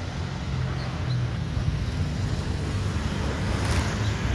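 Low, steady rumble of a distant Airbus A350's jet engines as it comes in to land, slowly growing louder, mixed with wind buffeting the microphone.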